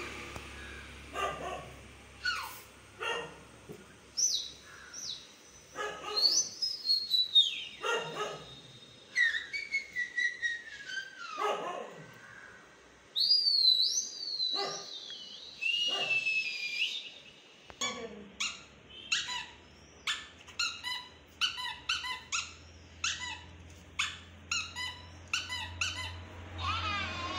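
Indian spitz puppy vocalising: long whining howls that slide up and down in pitch, then, in the second half, a quick run of short yips, about two a second.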